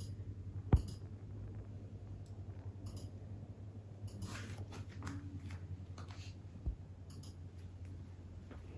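Faint breathing of a sleeping dog, soft puffs roughly once a second, over a steady low hum, with a single sharp knock about a second in and a smaller one near the end.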